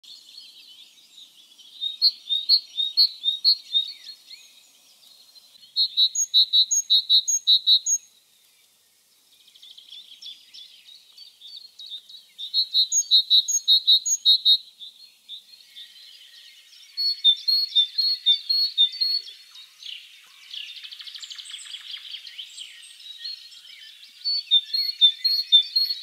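Great tit singing: about five bouts of quick, repeated high two-note phrases of the 'teacher-teacher' kind, each bout lasting a second or two with short pauses between. A harsh, buzzy churr comes about two thirds of the way through.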